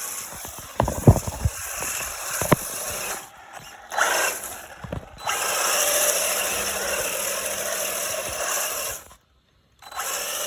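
Electric RC car drifting on tape-wrapped drift tyres: a steady high hiss of motor and sliding tyres, with a few sharp knocks. The sound cuts out twice for about half a second.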